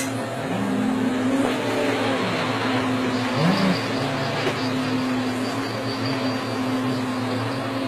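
Heavy machinery engine running steadily, its pitch briefly rising and falling about three and a half seconds in.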